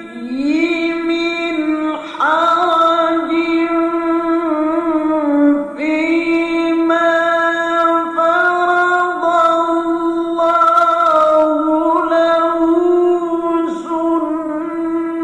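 A male qari's solo Quran recitation in the melodic tilawah style: long, high held notes with ornamented turns and slides between pitches. It breaks briefly between phrases at the start and about two and six seconds in.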